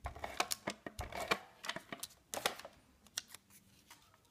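Sharp plastic clicks and paper rustling from a handheld adhesive tape runner being used on paper banner pieces, which are then handled on the card. There is a quick run of clicks in the first three seconds, then it goes quiet.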